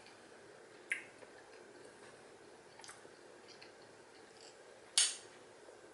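A metal fork clicking against a plate three times while spearing food, the loudest clink about five seconds in.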